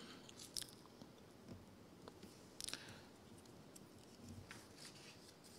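Near silence with a few faint clicks and rustles of papers being handled at a desk; the sharpest clicks come about half a second in and a pair near the middle.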